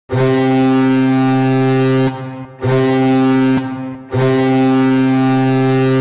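Colorado Avalanche arena goal horn: a loud, deep, steady horn blown three times, a long blast of about two seconds, a shorter one of about a second, then another long blast of about two seconds.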